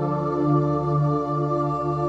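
Slow ambient new-age music of long, held chords, steady in loudness, with a new chord in the low notes setting in at the start.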